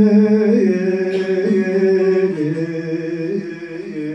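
A man singing a slow folk melody: one long held note, then the line stepping down in pitch and fading a little toward the end.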